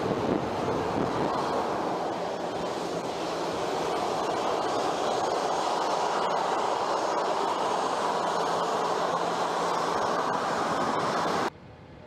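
Boeing 737 jet engines running as the airliner rolls along the runway: a steady rushing roar that swells slightly partway through. Near the end it cuts off abruptly to a much quieter background sound.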